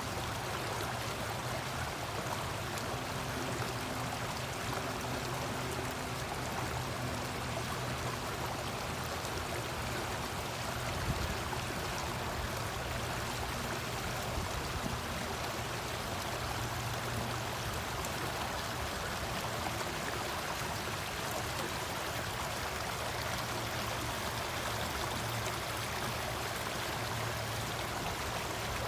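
Stream water running steadily, an even rush with no breaks.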